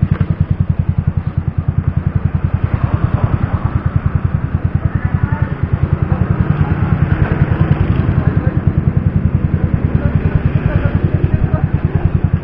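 Motor scooter's single-cylinder engine idling with a steady, even pulse.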